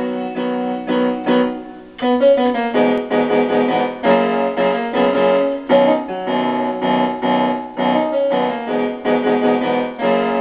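Background piano music: a sparser passage of single notes, then fuller chords from about two seconds in.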